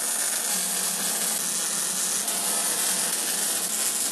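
MIG welding arc on sheet steel from an Eastwood MIG 175: a steady, unbroken crackle as a bead is run.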